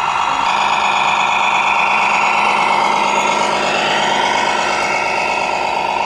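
Remote-controlled scale MAN semi truck's engine sound, running steadily with a higher whine that rises in pitch about halfway through.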